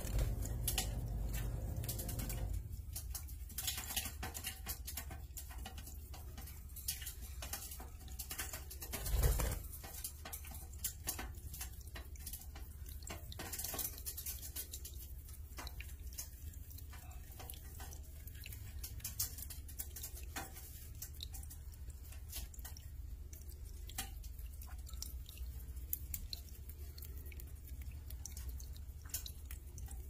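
Small water fountain trickling and dripping into its dish, with many short scattered ticks over a steady low hum. A louder dull bump comes about nine seconds in.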